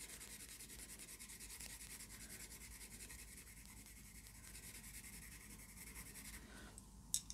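Faint, fast scratching of an oil-based coloured pencil shading back and forth on rough, toothy watercolour paper, with a short click near the end.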